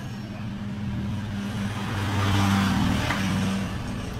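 A motor vehicle's engine hum that grows louder to a peak about halfway through and then fades, like a vehicle passing by.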